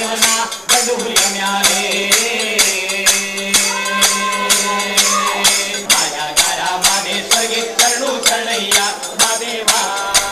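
Kamsale folk music: hand-held bronze kamsale cymbals clashed in a steady beat, about two to three strokes a second, over a melody and a steady low drone.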